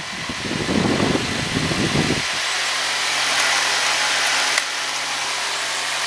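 A 12-volt oscillating car fan running, with a steady rush of air from its blades. A low rumble in the first two seconds stops abruptly, leaving a steady whir with a faint motor hum.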